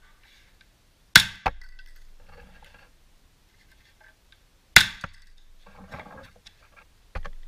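Airsoft pistol shots with BBs striking a clear polycarbonate protective sheet over a GoPro: three sharp cracks, the first two each followed a moment later by a lighter click, with handling rustle in between.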